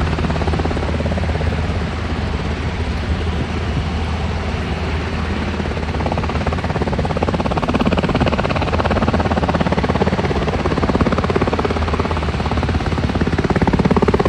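US Coast Guard MH-60 Jayhawk helicopter flying low overhead, its rotor giving a steady rapid beat over the turbine hum, a little louder in the second half.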